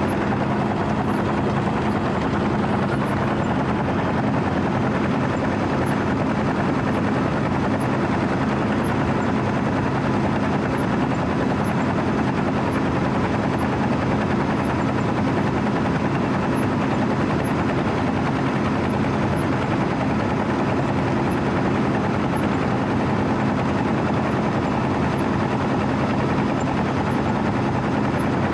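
Heavy diesel engine of road-milling equipment running steadily, a constant deep rumble with no change in speed.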